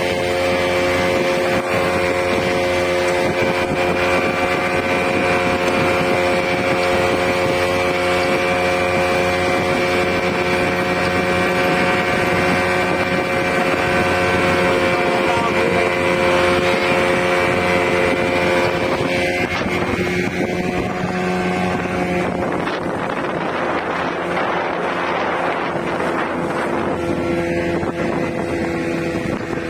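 Speedboat's outboard motor running at a steady pitch over the rush of water and wind on the microphone. About three-quarters of the way in, the engine tone fades under louder rushing noise, then comes back steadier near the end.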